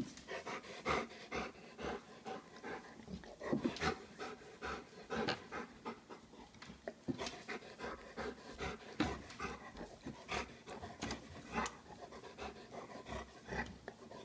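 Yellow Labrador retriever panting close to the microphone, a steady run of short breaths with brief pauses.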